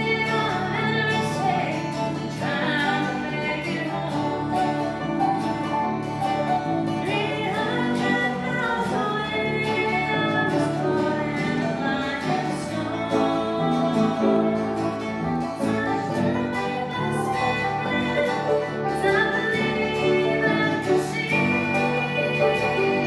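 A family gospel group singing a song with guitar accompaniment, the voices coming and going in phrases over a steady instrumental backing.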